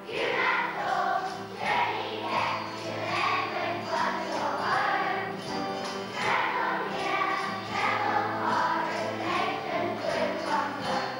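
Children's choir singing a song with instrumental accompaniment, with faint regular high ticks keeping time.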